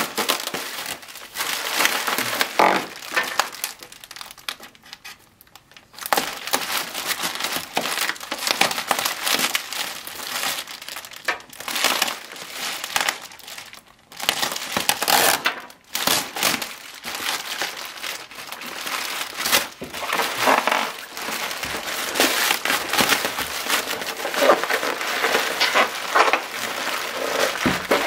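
Plastic bubble wrap crinkling and rustling as hands pull and unwrap it, in irregular bouts with a quieter pause about five seconds in.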